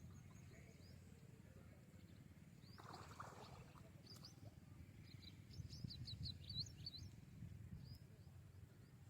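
Faint bird chirps, short and high, with a quick run of them about six seconds in, over a low rumble; a brief rustle sounds about three seconds in.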